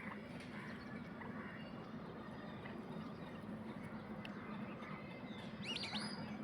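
Lesser whistling ducks (whistling teal) giving a few short, rising whistled calls, clustered close together near the end, over a faint steady low hum.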